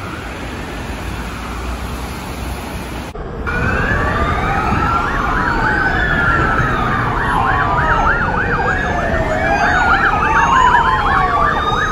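Street traffic on a wet road, with a faint siren at first. After a sudden cut about three seconds in, several emergency-vehicle sirens sound together: long rising and falling wails overlapping a fast yelp of about four sweeps a second.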